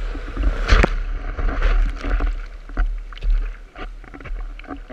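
Surf whitewater rushing around a surfboard, with repeated sharp slaps of water against the board and the board-mounted camera, over a steady low rumble.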